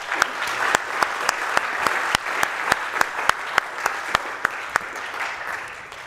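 Audience applauding at the end of a lecture. One pair of hands close to the microphone claps sharply and evenly, about two to three claps a second, above the rest. The applause eases off near the end.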